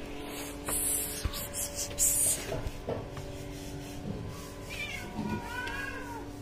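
A hungry kitten meowing, a wavering cry in the last couple of seconds, as it begs for food. Earlier, two brief hissy noises, the louder at about two seconds in, over a steady faint hum.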